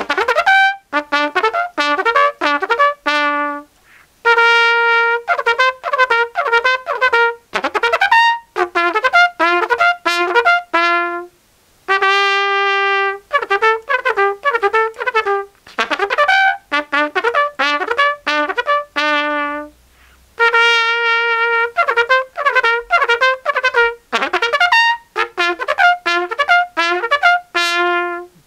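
Trumpet played in short phrases and held notes, first through a 3D-printed PLA plastic mouthpiece and then, partway through, through a metal mouthpiece, repeating the same passages for comparison. The plastic mouthpiece gives a tone that is a little dead; the metal one is a bit more brassy.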